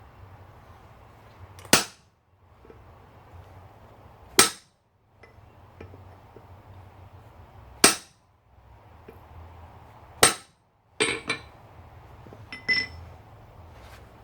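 Hammer blows on an anvil while forging copper: single ringing strikes a few seconds apart, then a quick run of lighter taps near the end, over a faint low hum.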